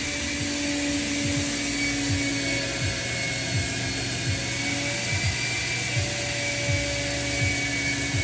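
Vacuum-driven grain probe running with a steady whirring whine as it pulls a grain sample up through its hose, with soft low thumps about once a second.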